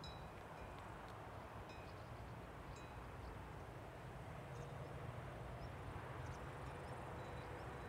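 Cowbells clanking faintly and irregularly, a few short ringing clanks every second or so, over a steady low hum.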